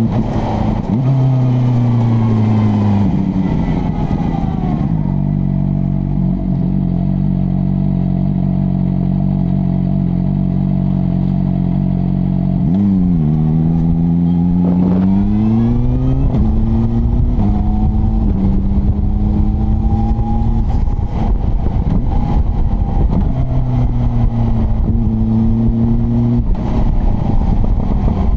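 CFMoto 500SR Voom's inline-four engine and exhaust on the move, its pitch climbing under acceleration and dropping at gear changes, with long stretches held steady while cruising. About halfway through the pitch drops quickly and then climbs sharply again.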